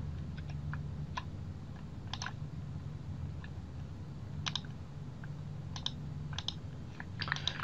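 Computer mouse clicking, a dozen or so short clicks at irregular intervals, over a faint low steady hum.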